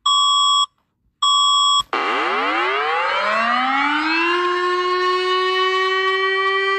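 Two electronic emergency-alert beeps, each about half a second long. Then a siren winds up from a low pitch, rises for about two seconds and holds a steady high tone.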